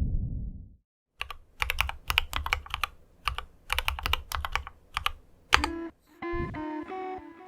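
Typing on a mechanical keyboard, a Quasi Alice with Marshmallow switches and GMK Godspeed ABS keycaps, in quick runs of keystrokes for about four seconds. A low rumble fades out in the first second, and guitar music comes in near the end.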